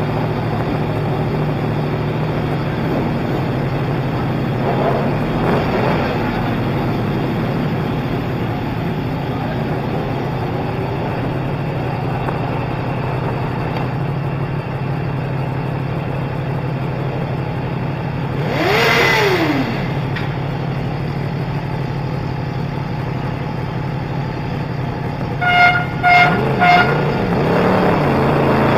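A 2016 Yamaha R1's crossplane inline-four idling steadily while the bike waits to go out on track. About two-thirds through, an engine's pitch briefly rises and falls; near the end there are three short beeps, and the engine note starts to climb as the bike moves off.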